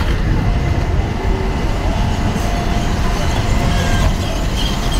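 Outdoor street ambience on a town road: a steady, heavy low rumble with faint traffic noise.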